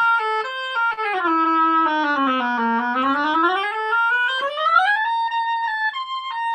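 Oboe played to try out a freshly made reed, heard over a video call. A run of notes steps down to a low note near the bottom of the instrument's range, about halfway through, then climbs back up into high notes.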